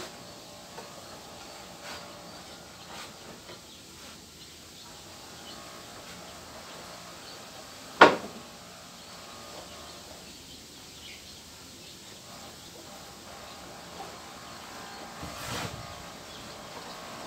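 Quiet workshop handling of wooden planks, with small scattered taps, one sharp loud knock about eight seconds in, and a brief scrape near the end.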